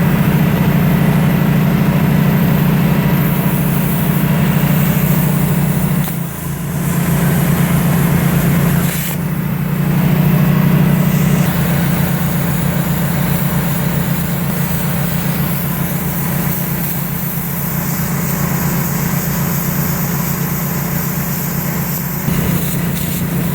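Plasma cutter at work cutting steel, with the portable generator that powers it running steadily; the hum dips briefly about six and again about nine seconds in.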